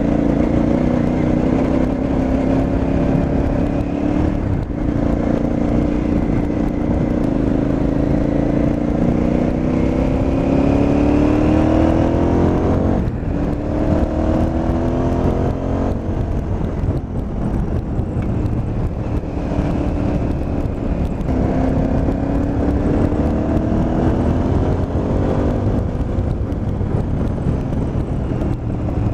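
KTM 950 Adventure's V-twin engine under way, its note rising steadily as it pulls and then dropping sharply at each upshift, about four times.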